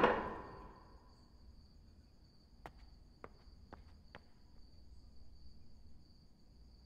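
A glass jug set down on a glass-topped table rings and fades over the first second. Under it and after it a cricket keeps up a steady, high, pulsing trill, with four faint ticks about three to four seconds in.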